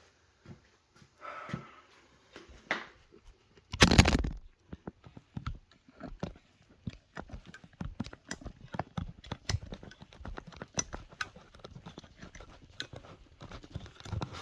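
Hand pipe-crimping tool being worked to close a crimp on a 3/4-inch pipe fitting: a loud short scrape or knock about four seconds in, then a long run of irregular small clicks and creaks as the tool is squeezed.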